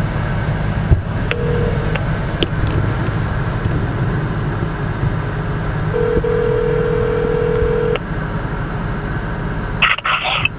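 Telephone ringback tone from a smartphone on speakerphone: one short ring about a second in, then one steady two-second ring about six seconds in. A steady car-cabin rumble runs underneath. Near the end there is a brief noisy burst as the call connects.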